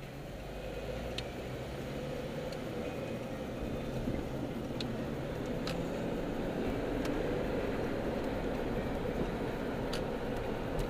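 Honda CR-V driving: steady engine and road noise that grows louder over the first few seconds, then holds.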